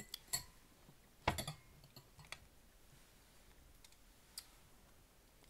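Tableware being handled: a few light, sharp clicks and one louder knock about a second in, as a metal fork is set down in a bowl on the plate.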